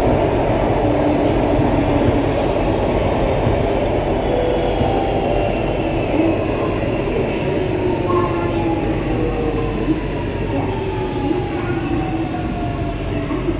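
C751A metro train heard from inside the car: steady rail running noise under the whine of its Toshiba IGBT-VVVF traction inverter and motors. Through the second half several tones of the whine slide down in pitch together as the train slows.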